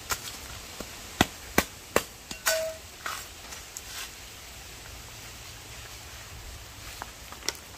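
Irregular sharp knocks or cracks: a quick cluster of loud ones in the first three seconds, then a few fainter ones and one more near the end.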